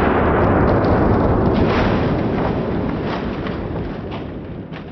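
Slowed-down blast of a 12-gauge shotgun firing a slug: one long, dense boom that starts abruptly and fades slowly over several seconds.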